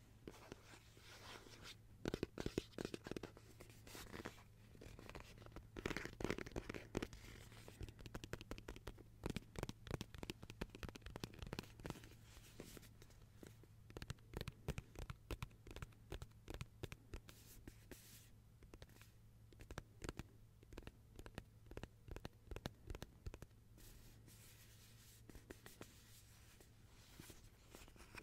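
Close-miked ASMR trigger sounds: faint, rapid clicks and crackles in irregular clusters, with a few louder bursts in the first seconds.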